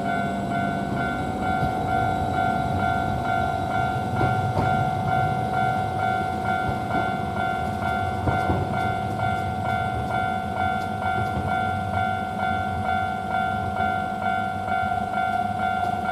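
Japanese level-crossing warning bell ringing in a steady, evenly repeating clang. A tram rumbles past over the crossing, loudest between about two and nine seconds in, with clicks from its wheels over the rail joints.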